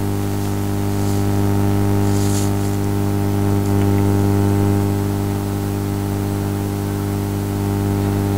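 Steady electrical hum with a row of higher overtones above it, over a constant hiss: the background noise of the recording, with no speech.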